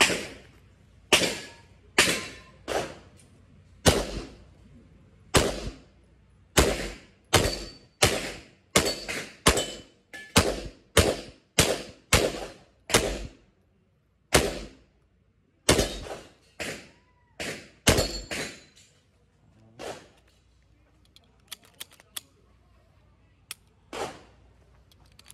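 Pistol shots at an outdoor range: about thirty single shots in the first twenty seconds, each ringing briefly. In the middle stretch they speed up to about two a second, with short pauses between strings and one last shot near the end.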